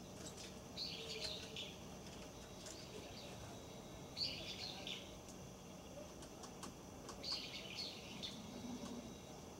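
A small bird chirping in three short bouts a few seconds apart. Scattered sharp taps come from a great tit hammering open a seed held under its feet.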